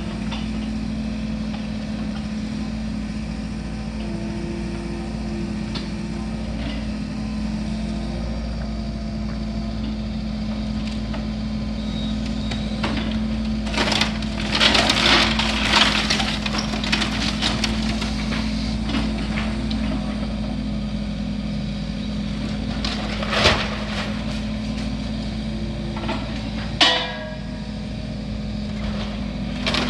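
Heavy demolition machine's diesel engine running steadily while the wooden structure of a house is crushed and broken apart. A burst of loud cracking and crunching comes about halfway through, and two sharper cracks follow later.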